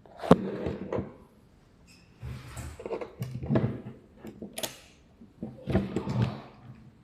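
Handling noises from small parts being worked by hand: a scattered series of sharp clicks and knocks with short scrapes between them.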